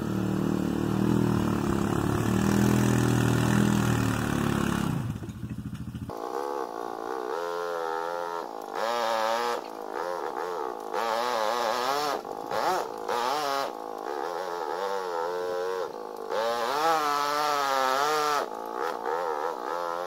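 Honda Recon ATV engine running: a steady low drone for about the first six seconds, then a higher engine note that keeps rising and falling as the throttle is worked over rough ground while the ATV pulls a dump cart.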